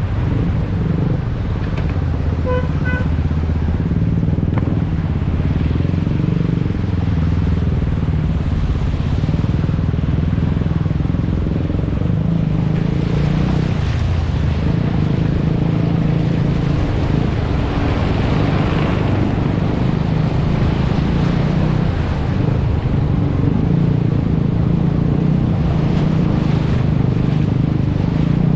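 Motorcycle engine running steadily close by, with two short horn beeps about two and a half seconds in.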